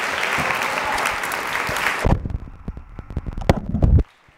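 Audience applauding; about two seconds in the applause gives way to loud low thumps and knocks, which cut off abruptly about four seconds in.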